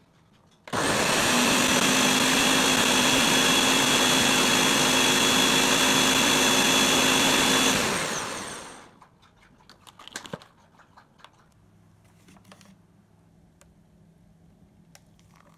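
Countertop blender running at one steady speed for about seven seconds, blending ice cream and cream into a milkshake, then spinning down over about a second. A few light clicks and knocks follow.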